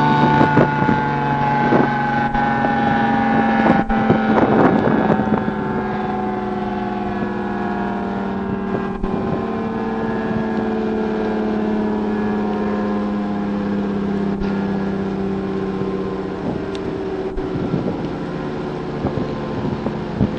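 Federal Signal 500AT civil defense siren winding down, its stacked tones sliding slowly lower in pitch. Wind on the microphone and a few clicks of an old cassette recording sound under it.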